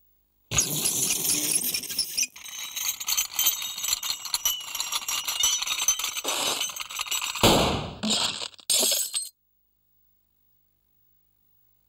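Cartoon sound effects: a knife scraping across a chalkboard in a long, high-pitched screech, then a loud crash of breaking, shattering glass about seven and a half seconds in.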